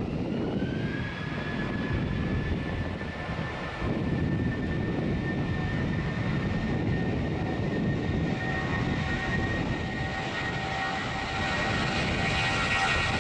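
Jet engines of a Boeing 787-9 taxiing at low thrust: a steady whine over a low rumble. The whine rises in pitch in the first second and then holds, and it grows louder and brighter near the end as the aircraft comes closer.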